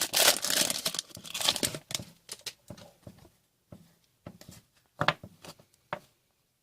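Foil wrapper of a hockey trading card pack crinkling and tearing open for about two seconds, then scattered light clicks and taps as the cards are handled.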